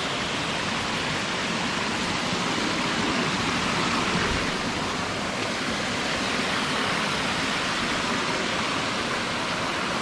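Water of a forest stream rushing over rock steps and small cascades below a waterfall, a steady rushing noise.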